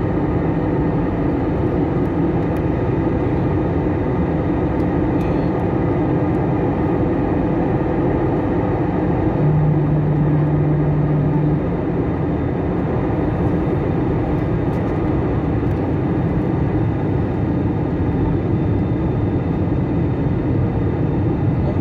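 Steady cabin noise of an airliner in flight, heard inside the cabin: a constant roar of the engines and airflow, unchanging throughout. A low steady tone sounds for about two seconds midway.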